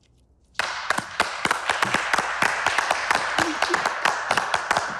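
Studio audience applauding, starting suddenly about half a second in as dense, fast clapping that keeps on at a steady level.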